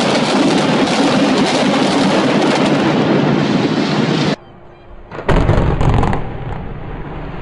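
Controlled demolition of buildings with explosive charges: a dense, loud roar of blasts and collapsing masonry that cuts off abruptly about four seconds in. After a short lull, a second loud burst of demolition blasts with a deep rumble, settling into a steadier lower rumble near the end.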